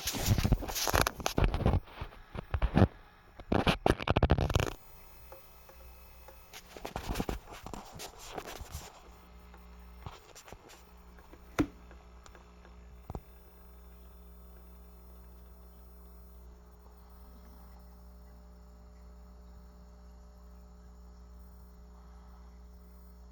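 Loud scraping and rustling for about five seconds, more again a few seconds later, then a few isolated sharp clicks, one much louder, over a faint steady hum. The clicks match the clicking of an Aquarium Co-Op aquarium heater.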